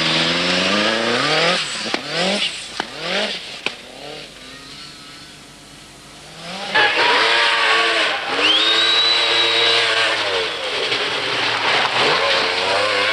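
Group B rally cars driven hard on a special stage. One car revs up sharply through quick gear changes and fades over the first few seconds. About seven seconds in a second car arrives loud, its engine note dipping and rising, with a high whine for a second or two.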